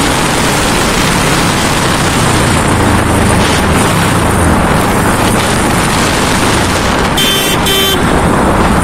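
Kawasaki Ninja 650's parallel-twin engine running at road speed, with wind rush on the microphone. Near the end a horn sounds two short toots.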